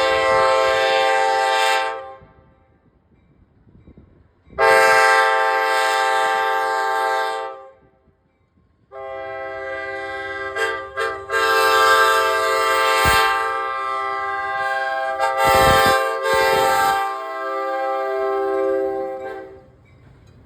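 A locomotive's Nathan K5LA five-chime air horn sounding. It gives a blast of about two seconds, then one of about three seconds, then a long blast of about ten seconds with a couple of brief breaks near its start.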